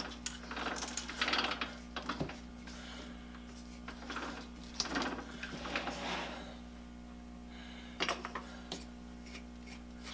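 Metal lathe turned by hand at its belt pulley and chuck, power off, starting a 12-24 tap into a drilled hole in hot-rolled steel: short bouts of mechanical rubbing and clicking from the spindle, belt and cutting tap, dying down to a few single clicks in the second half. A faint steady hum lies underneath.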